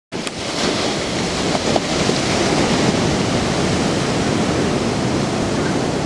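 Big ocean waves breaking, a steady rush of surf.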